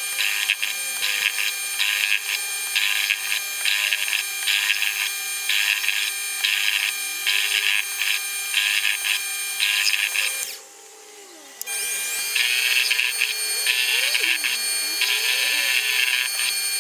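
Mini lathe motor whining steadily while the brass workpiece is worked in regular back-and-forth scraping strokes, about one or two a second. The sound drops out briefly about ten seconds in, then the strokes resume.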